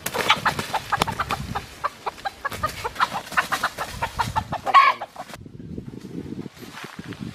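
Rooster clucking in a rapid string of short clucks, with one louder, longer squawk just before the clucking cuts off about five seconds in; a low rustling follows.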